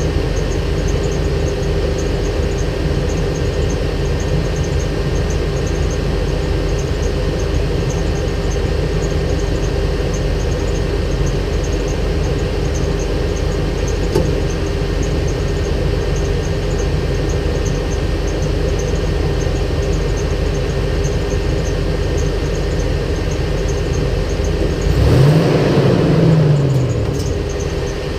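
Vehicle engine running steadily at idle, then revved up, held for a couple of seconds and let back down near the end.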